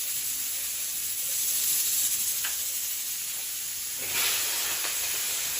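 Fish sizzling as it fries in hot oil in a pan, a steady hiss that swells louder about four seconds in.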